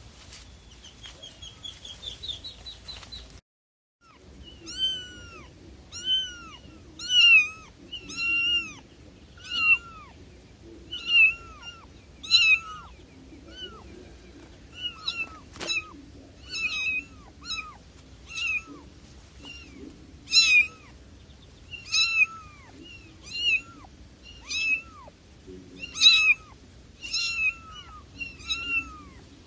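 A cat mewing over and over in short, high-pitched mews that fall in pitch, about one to two a second, some much louder than others. Before that, a brief run of high chirps ends in a short silence about three seconds in.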